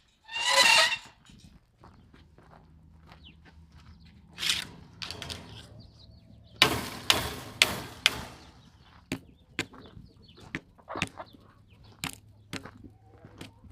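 Chickens clucking and squawking as they are chased out of the run, in irregular loud bursts, with the loudest flurry about seven seconds in.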